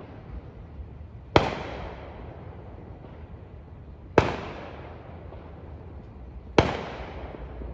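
Fireworks bursting in the sky: three sharp bangs, roughly two and a half seconds apart, each followed by a fading echo.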